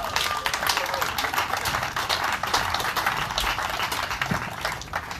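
Crowd applauding, a dense patter of many hands clapping that stops near the end.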